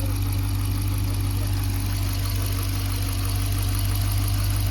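Dodge Durango R/T's V8 engine idling steadily, running up to temperature after the cooling system refill.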